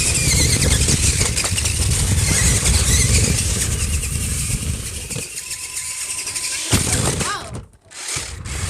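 Battery-powered remote-control monster trucks driving: small electric motors whining and wheels running over rough ground, with a heavy low rumble. The sound eases about five seconds in and drops out briefly near the end.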